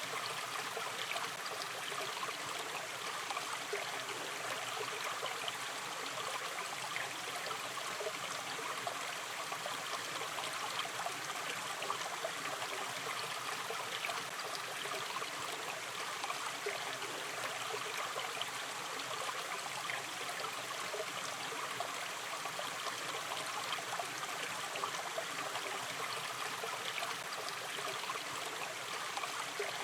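Shallow river stream running gently, a steady wash of flowing water with small trickles and gurgles.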